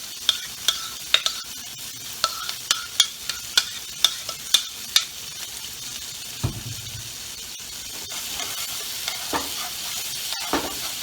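Diced onions and bell peppers sizzling in olive oil in a frying pan. For the first five seconds a utensil taps sharply against the pan about a dozen times while stirring. Later come a couple of dull knocks, and the sizzle grows louder toward the end.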